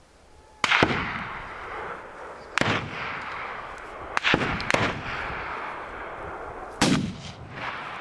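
Hunting rifle shots fired at a running wild boar: five shots at irregular intervals, two of them in quick succession near the middle. Each is followed by a long echoing tail.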